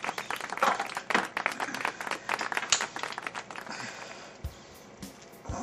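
A metal spoon clicking and scraping rapidly against a small tin and a ceramic bowl as food is scooped out. The clatter eases off after about three and a half seconds, and a few soft low knocks follow near the end.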